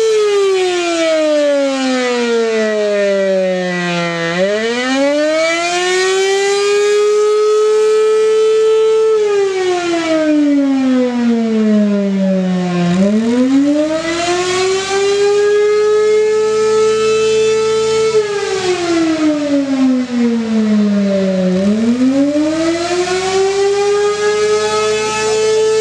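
Rotating trailer-mounted siren sounding a wail. A steady high tone slides slowly down to a low growl, then climbs back up and holds, three times over. Its loudness wavers as the horn turns.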